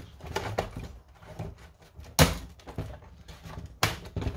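Hard plastic knocking and clicking as the carry handle of a Nerf Vulcan is worked back onto the blaster's body, with one sharp knock about two seconds in and another near the end.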